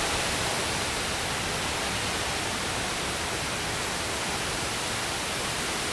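Steady, unbroken rushing noise of a severe storm, heavy rain and wind, with no distinct events.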